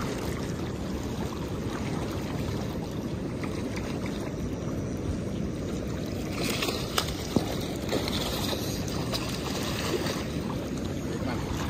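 Steady rush of river current around a wading angler. About six to seven seconds in, an Atlantic salmon splashes at the surface with a couple of sharp slaps as it is led to the landing net.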